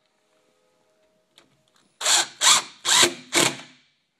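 A screwdriver drives a latch screw into a wooden door edge. Four short ratcheting bursts come about half a second apart, starting about two seconds in.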